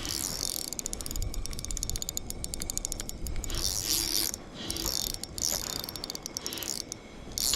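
Fishing reel's drag clicking rapidly as a hooked lake trout runs and pulls line off the reel, first in a steady run and then in several shorter spurts.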